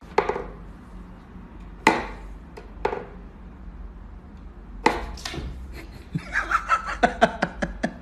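Wooden knocks and clacks from a wooden whack-a-mole cat toy box as its pegs are pushed through the holes and the cat bats at them: a handful of separate knocks, then a quick run of clattering knocks near the end.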